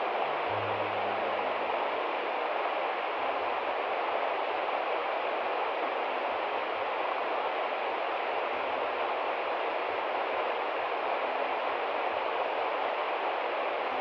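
River water rushing over rocks in shallow rapids, with a waterfall pouring down a rock face behind: a steady, even rush of water with no change in level.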